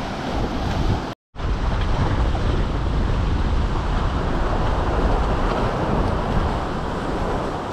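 Sea surf washing in among granite boulders on a rocky shore, with wind rumbling on the microphone. The sound drops out completely for a moment about a second in.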